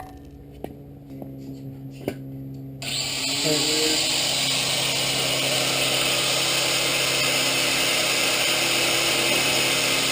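A grinder with a cut-off wheel starts about three seconds in and runs steadily, grinding through the motorcycle's stock exhaust pipe with a loud hiss over a steady motor hum. Before it starts there is only a low hum and a few light knocks.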